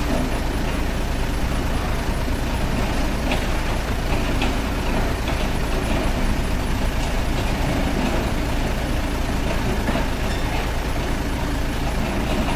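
Radio-controlled toy excavator running, a steady engine-like rumble with a few small clicks.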